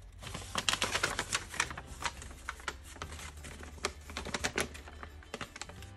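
Paper instruction sheets being handled and crumpled, an irregular crackling rustle.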